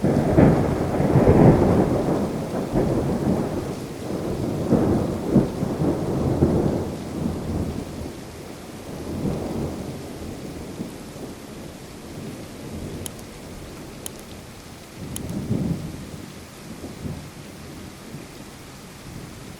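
Thunder rumbling over steady rain: a loud rolling peal that breaks right away and rumbles on for about seven seconds, then two fainter rumbles later as it dies away.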